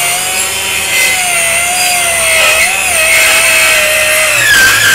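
Cordless brushless 125 mm circular saw (multi-purpose cutter) cutting through a wooden board: a steady motor whine over the rasp of the blade in the wood, the whine sagging slowly in pitch as the blade works under load.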